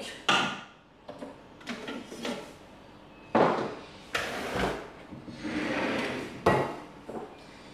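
Thermomix's stainless-steel mixing bowl and lid being handled and set in place: a series of separate clunks and knocks, the loudest about three and a half seconds in, with a short scraping rustle near the end.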